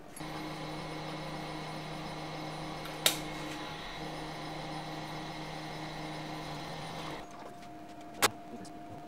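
Milling machine running with no cut, a steady motor hum that changes about seven seconds in. Two sharp metallic clinks, one about three seconds in and one near the end.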